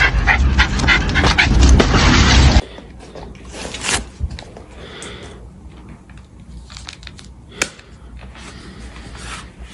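A dog panting hard in quick, even breaths, which cut off suddenly about two and a half seconds in. After that come faint rustling and one sharp click near the end.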